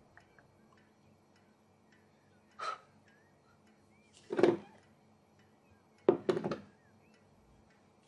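A few soft thunks and knocks of things being handled: a light one about a third of the way in, the loudest about halfway, then a quick run of three near the end.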